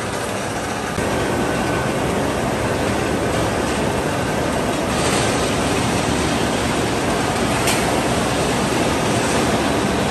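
Steady mechanical noise of a rebar rolling mill running, getting louder about a second in, with a few faint metallic ticks.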